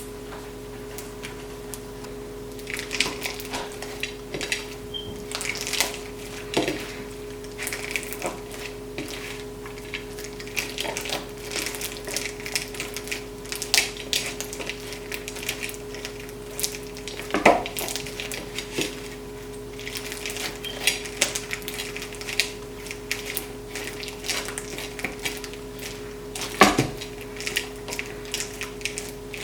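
Clear crunchy slime packed with plastic beads being squeezed and kneaded by hand: irregular clicks, crackles and pops, with two louder snaps a little past halfway and near the end.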